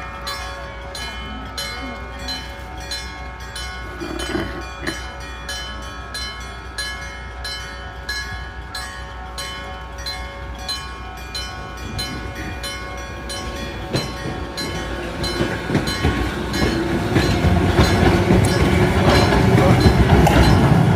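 Level-crossing electric striker bell (denshō) ringing in rapid, even strikes, about three a second. A Randen tram comes up and runs over the crossing, getting louder over the last few seconds.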